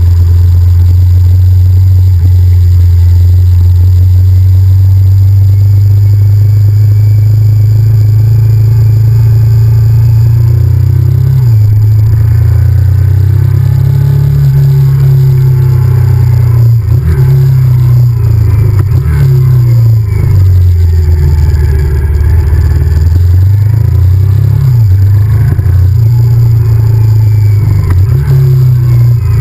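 Honda VTR1000F's V-twin engine running under way: its low note holds steady for about ten seconds, then rises and falls again and again with throttle and gear changes.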